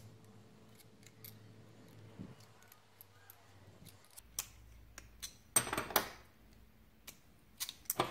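Pliers clicking against small metal tray tabs as bent tabs are squeezed flat by hand: scattered light clicks, with two louder clacks about five and a half and six seconds in.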